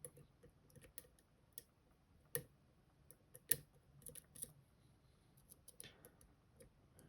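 Faint, irregular small metallic clicks of a pick working the spring-loaded sliders and pins inside an M&C Color+ dimple lock, with two sharper clicks about two and a half and three and a half seconds in.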